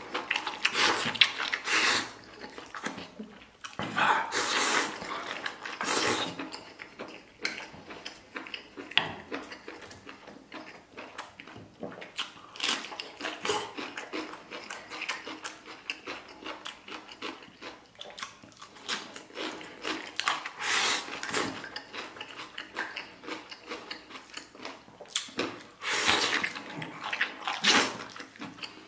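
A person eating close to the microphone: several loud slurps as strips of saucy beef tripe and omasum are sucked in from the bowl, with wet chewing and lip smacks between them.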